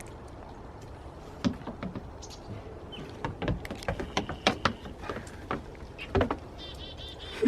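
A puppy walking in shoes: irregular hard clacks and knocks of the shod paws, starting about a second and a half in and coming in quick clusters.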